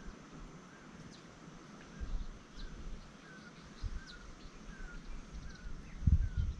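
A bird repeating a short chirp over and over, about twice a second, with fainter high chirps alongside. A low rumble comes in near the end and is the loudest sound.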